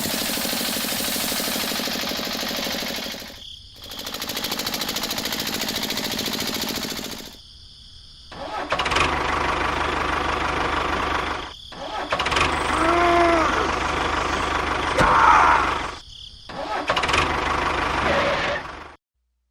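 Small motors of miniature model construction machines running steadily, breaking off abruptly several times, with a few brief squeaks along the way.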